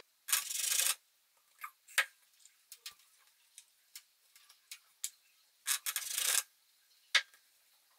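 A china mug pressed and twisted down through rolled dough onto the floured tabletop, its rim scraping twice, once just after the start and once around six seconds in, with scattered light clicks and taps of the cup and dough pieces on the table between.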